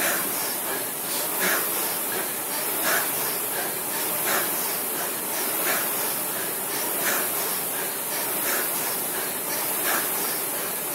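Concept2 indoor rowing machine's air flywheel whirring steadily as it is rowed hard, with a surge of noise on each stroke about every second and a half.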